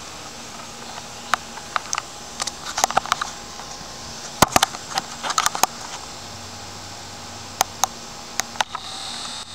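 Handheld camcorder handling noise: scattered sharp clicks and taps, some in quick clusters, over a steady hiss. A brighter hiss sets in near the end.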